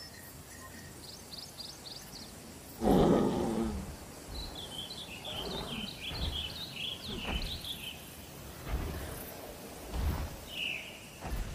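Outdoor ambience with small birds chirping in short runs. About three seconds in there is one louder, rougher sound lasting about a second, and a few low thumps near the end.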